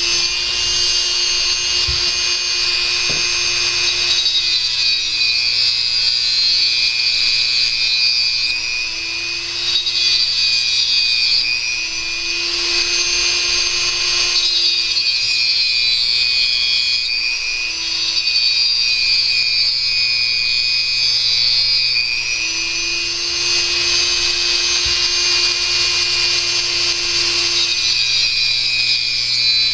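Dremel rotary tool with a cut-off wheel running continuously while cutting a resin pour stub off a model ejection seat. Its high whine dips in pitch each time the wheel is pressed into the resin and rises again when it is eased off, several times over.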